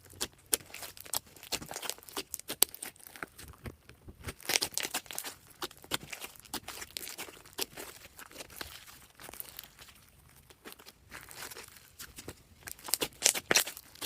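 Slime being mixed and squished by hand: a dense, irregular run of sticky clicks, pops and crackles, busiest about four and a half seconds in and again near the end.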